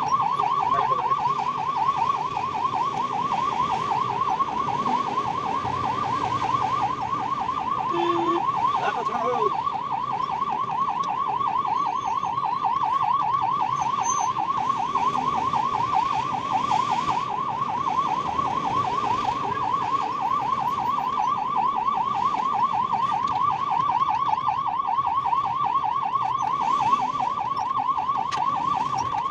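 Ambulance's electronic siren sounding a fast, steady warble, heard from inside the ambulance cab.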